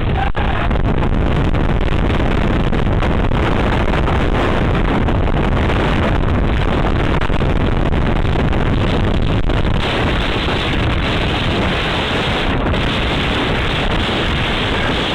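Storm wind buffeting the microphone: a loud, steady rush of noise that turns hissier about ten seconds in.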